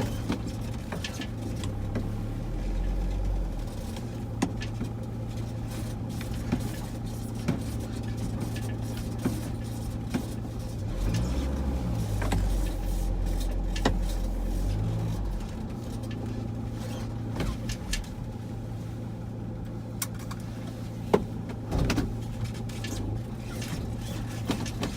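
A steady low mechanical hum, with a deeper rumble swelling twice and scattered sharp clicks and knocks.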